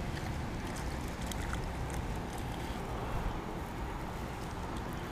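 Steady low outdoor rumble with a few faint light ticks.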